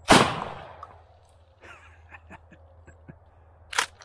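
A 12-gauge shotgun firing a round of double-aught buckshot: one sharp blast with a tail that dies away over about a second. Faint clicks follow, then two short sharp clacks near the end.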